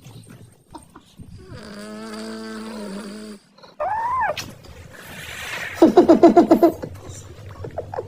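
An animal's calls: a long held note, then a short cry that rises and falls, then a rapid run of pulsed sounds.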